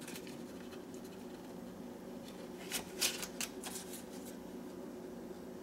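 A low steady hum, with a short run of light rustling clicks about three seconds in from hands handling butter beside the plate.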